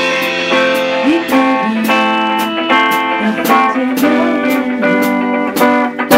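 Band music: guitar notes, some with bending pitch, over a steady beat of sharp percussion hits.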